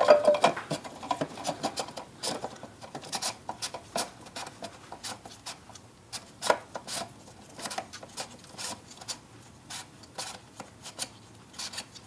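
Irregular light clicks and rubbing from handling the plastic oil filter housing cap and the new cartridge oil filter, with a sharper click about six and a half seconds in.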